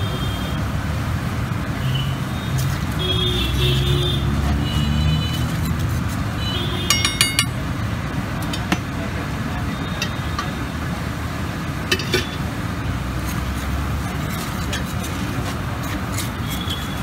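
Metal spatula clinking and scraping on a large flat iron griddle, with a quick run of sharp taps about seven seconds in and a couple more about twelve seconds in. A steady background of street traffic noise runs underneath.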